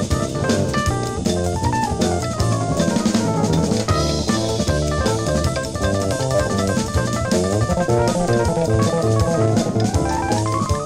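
Jazz-fusion quartet recording from a vinyl LP: a busy drum kit and bass under fast melodic runs that climb and fall.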